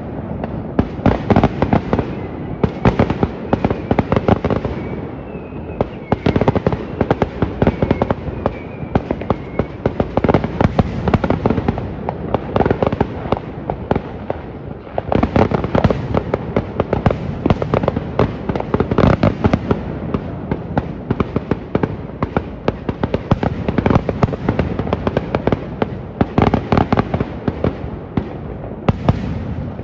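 Fireworks going off in a dense, unbroken barrage of bangs and crackling pops. A faint wavering whistle runs through it for a few seconds about a quarter of the way in.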